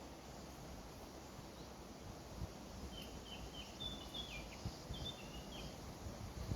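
Wind blowing, with a few low gusts buffeting the microphone. About three seconds in, a small bird sings a short phrase of quick, high chirps.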